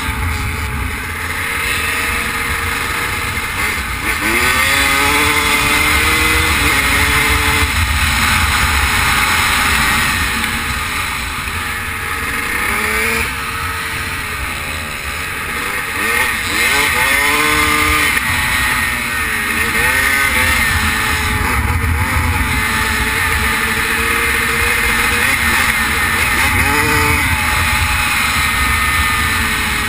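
Motocross dirt bike engine under hard riding, its pitch climbing and dropping again and again as the rider accelerates and shifts, with heavy wind rumble on the helmet-mounted microphone.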